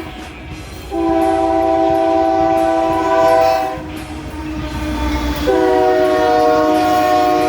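Locomotive multi-chime air horn sounding two long blasts of about three seconds each, a chord of several steady notes, with a short pause between them. A low rumble of the passing train runs underneath.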